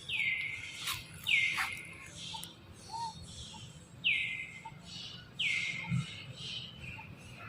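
Baby monkey giving four high-pitched calls. Each slides down sharply and is held for about half a second, the first two close together and the last two close together a few seconds later, with faint clicks in between.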